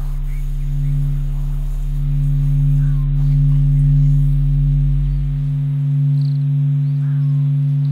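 A steady drone of held low tones, with a deeper hum beneath that fades out about six seconds in. Faint short chirps sound above it.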